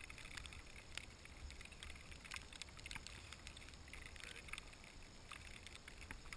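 Faint low wind rumble on the microphone, with scattered small clicks and rustles from clothing and gear.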